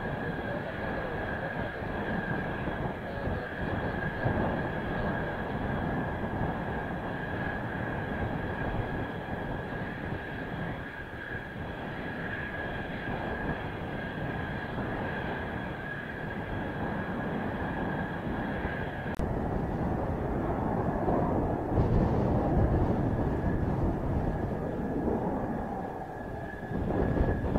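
Mitsubishi F-2 fighter's F110 turbofan running on the ground with a steady high whine. Strong wind rushes and rumbles on the microphone, swelling louder near the end.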